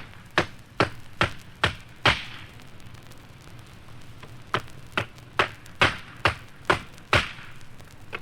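A hammer striking in steady, evenly spaced blows, a little over two a second. There are two runs of strokes with a pause of about two seconds between them.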